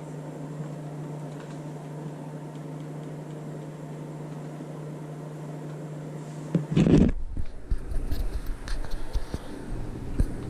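A steady low hum with faint hiss, broken about seven seconds in by a loud thump, after which a lower, louder rumble with scattered knocks and clicks carries on.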